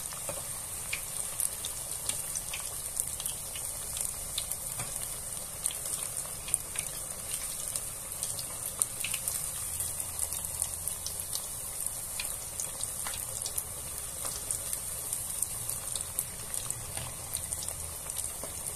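Breaded chicken breast strips deep-frying in hot oil: a steady high sizzle with many small pops and crackles as the coating browns.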